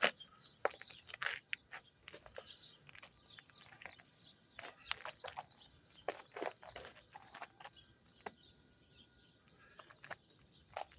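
Footsteps crunching on ice-crusted snow, an irregular series of sharp crunches.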